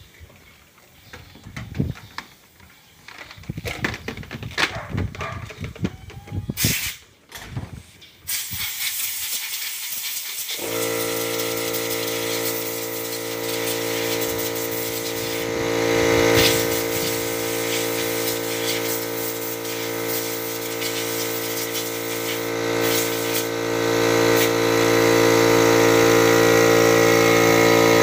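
Compressed air hissing from an air gun as it blows dust out of a car's panel engine air filter, in short spurts at first and then continuously. About ten seconds in, an air compressor's motor starts and runs with a steady hum under the hiss. A few knocks and handling sounds come before the air.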